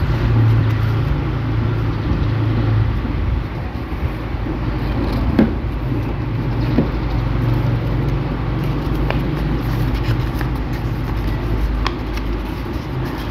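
Steady low motor rumble, with a few short clicks.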